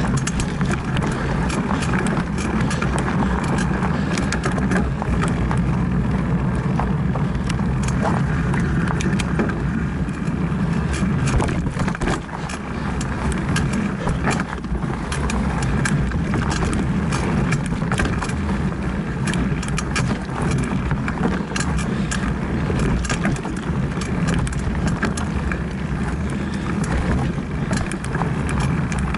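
Mountain bike rolling fast over a rough dirt trail: a steady rumble from the tyres with frequent rattling clicks from the bike and camera mount.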